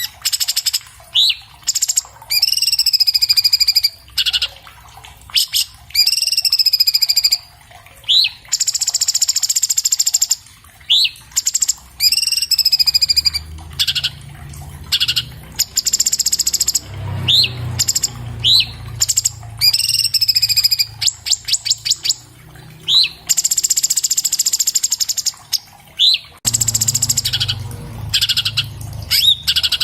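Orange-bellied leafbird singing continuously. Short, sharp rising whistles alternate with longer, rich warbled phrases, and a quick run of short notes comes about two-thirds of the way through.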